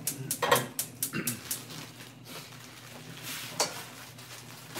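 Cookware and utensils being handled at a gas stove: a run of irregular clicks and clinks in the first second and a half, and one more sharp knock about three and a half seconds in, over a steady low hum.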